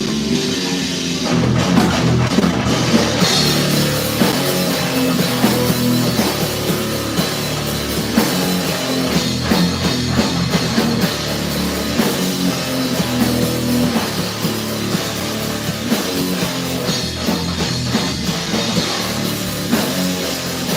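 Live rock band playing heavy, punk-edged music on electric guitar and drum kit, with the full band coming in behind the guitar about a second in.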